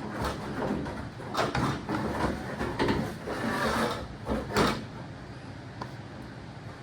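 Metal parts scraping and clanking as they are worked loose and moved by hand, with a few sharp knocks in the first five seconds, then quieter handling.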